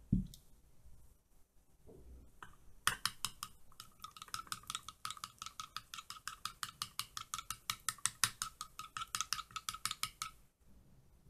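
A spoon stirring honey into melted coconut oil and flour in a glass bowl, clinking against the glass about five times a second, with the bowl ringing at each stroke. A low thump is heard at the very start.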